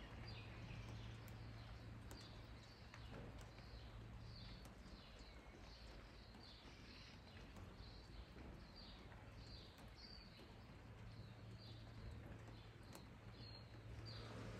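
Faint bird calling a steady series of short high chirps, a little under two a second, over a faint hiss and a steady low hum.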